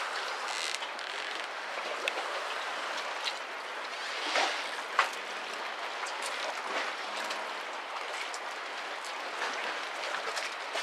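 Steady rush of wind and choppy harbour water, with scattered sharp knocks and clicks; the loudest are a brief surge of noise about four seconds in and a sharp knock a moment later.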